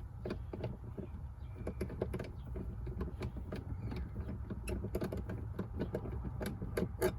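A shift knob being unscrewed by hand from a six-speed manual gear lever: many small, irregular clicks and rattles over a steady low rumble.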